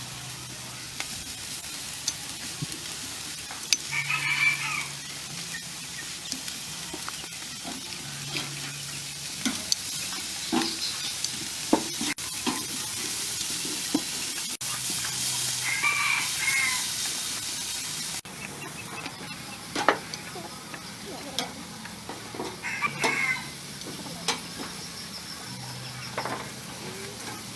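Beef steaks sizzling on a charcoal grill as they are basted with a brush, a steady frying hiss with a few light knocks of the utensils. A chicken calls three times in the background.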